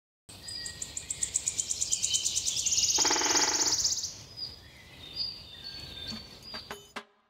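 Countryside bird ambience: birds chirping and tweeting over a fast, even, insect-like trill that swells louder for a moment about three seconds in, followed by thinner, scattered high tweets.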